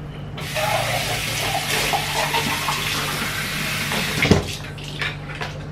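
Water running from a tap, filling the emptied coconut-milk can with a can's measure of water for tapioca batter. It runs for about four seconds and stops with a single knock.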